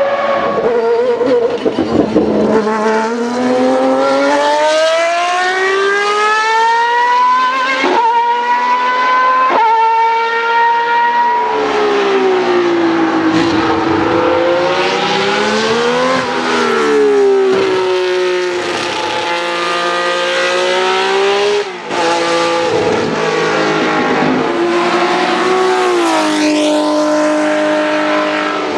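Historic Formula 1 car engines at high revs: first one accelerating hard through the gears, the note climbing and breaking at each upshift, then engines falling and rising in pitch through downshifts and acceleration out of a corner.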